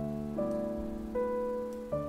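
Background piano music: a slow, even sequence of chords, a new one struck about every three-quarters of a second, each fading slightly before the next.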